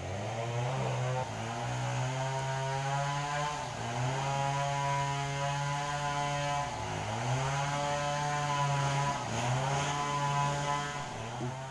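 A small engine running with a steady drone, its pitch dipping briefly a few times as its speed changes.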